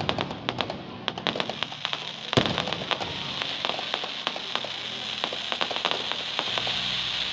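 Fireworks crackling: a dense run of quick, sharp pops, with one louder bang about two and a half seconds in, after which the pops thin out.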